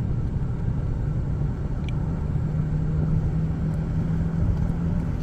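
Car engine drone and low road rumble heard from inside the moving car's cabin, steady throughout, with a steady hum coming up about a second and a half in.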